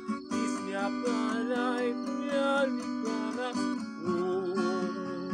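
Takamine cutaway acoustic guitar strummed in chords, with a man singing a wordless melody of gibberish syllables over it.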